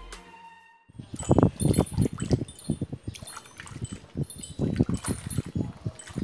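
Water sloshing and splashing in a plastic foot basin as a foot and leg are rubbed and washed by hand, in irregular strokes, with light high tinkles among the splashes.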